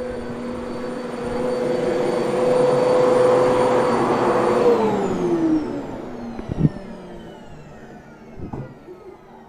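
Vacuum cleaner running with a steady motor whine and rush of air. About halfway through it is switched off and the motor spins down in a long falling whine. A sharp knock follows shortly after.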